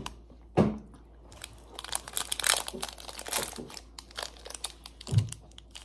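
Foil-lined plastic candy-bar wrapper crinkling and crackling as it is worked open by hand, thickest in the middle, with a couple of dull knocks.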